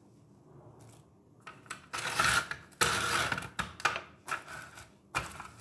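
Plastic cling film crinkling in irregular bursts as it is stretched over a glass bowl and pressed down around the rim, starting about a second and a half in.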